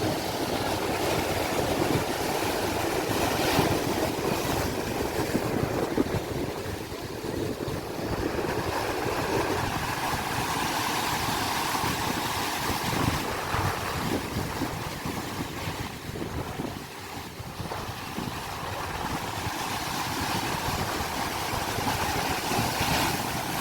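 Sea waves washing ashore: a continuous rushing noise that swells and eases.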